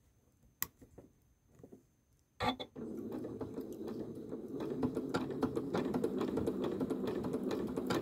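Janome sewing machine starting with a knock about two and a half seconds in, then stitching steadily at low speed as a fast run of fine ticks; before it, only a few small clicks of fabric and tool handling.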